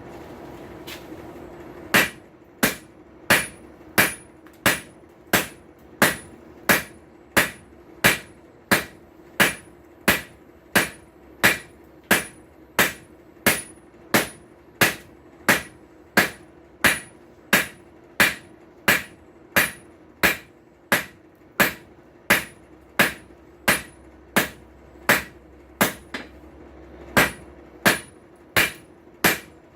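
Blacksmith's hammer striking hot steel on an anvil, a steady run of blows about one and a half a second with a bright ring on each, starting about two seconds in and pausing briefly near the end, as a tong blank is forged. A steady hum runs underneath.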